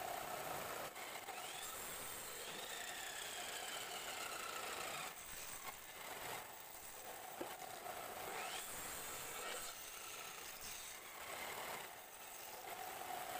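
Wood lathe spinning a wooden blank while a hand-held turning tool cuts into it, a steady scrape of wood being shaved off.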